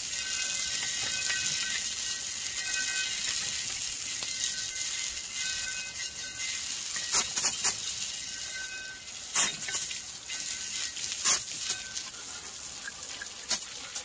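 Garden hose spraying water on a tire rim to wash off tire slime: a steady hiss that eases off about eight seconds in, followed by a few sharp knocks.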